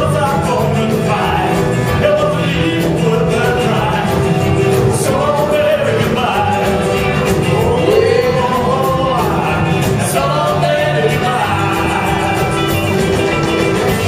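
Live rockabilly band playing a song, with a singer over upright bass, guitars, drums and piano.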